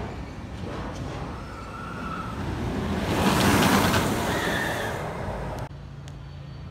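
Intamin steel roller coaster train rushing past overhead: a swelling roar of wheels on the track that peaks about halfway through, with riders' screams rising over it. It cuts off suddenly near the end, leaving a low hum.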